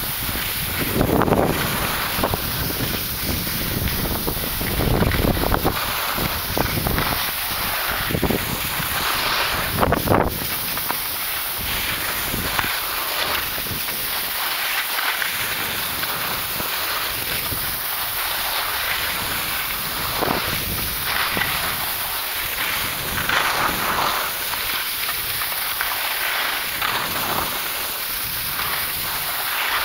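Wind rushing over the microphone of a camera carried by a skier heading downhill, gusting hardest in the first ten seconds or so, over the hiss of skis sliding and turning on packed snow that swells and fades with each turn.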